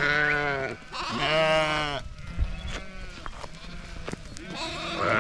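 A flock of sheep bleating on the move, several wavering calls overlapping, loudest in the first two seconds and again near the end, with fainter bleats in between.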